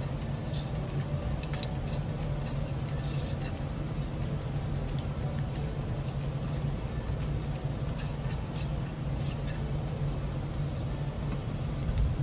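Nigella seeds frying in hot oil in a nonstick pan, with scattered small crackles and pops while a silicone spatula stirs, over a steady low hum.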